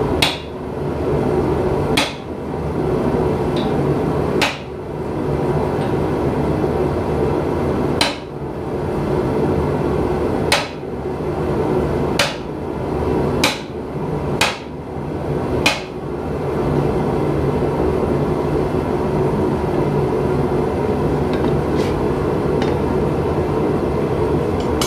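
Hand hammer striking hot steel on an anvil: nine sharp single blows at uneven intervals, one to three seconds apart, stopping about two-thirds of the way through, over a loud steady drone.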